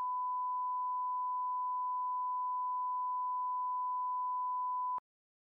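Broadcast line-up test tone of the kind that goes with colour bars: a single pure, steady beep held for about five seconds, then cut off suddenly.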